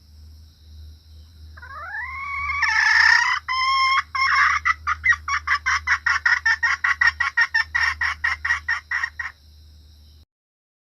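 Female junglefowl calling: a rising squawk about two seconds in, then a fast run of short cackling notes, about four or five a second, that stops abruptly near the end.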